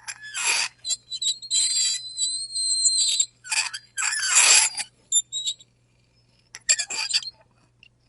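A fork scraping across a plate in a run of harsh strokes with high-pitched squeals, several of them drawn out for about a second. It stops for a moment around two-thirds of the way in, then comes back with a few short scrapes.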